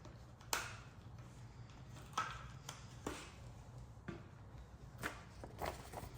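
Faint handling sounds from peeling a thin plastic film label off its backing: about six short crinkles and taps spread a second or so apart.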